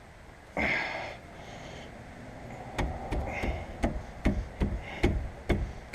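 Repeated knocks, about two a second, starting about halfway through: a rust-stuck part of the brake assembly being banged on to free it.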